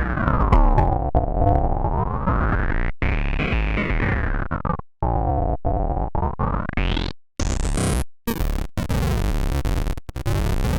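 Synthesizer music run through a bit-crusher effect, its gritty tone sweeping slowly up and down every few seconds and cutting out abruptly for an instant several times.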